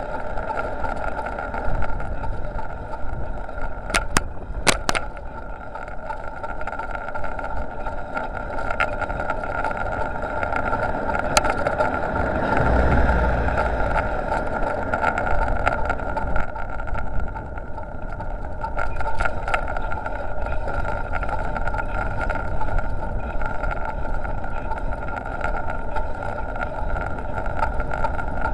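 Wind and road rumble on a bicycle-mounted dashcam's microphone while riding, under a steady whine, with a few sharp clicks about four and five seconds in and again near the middle.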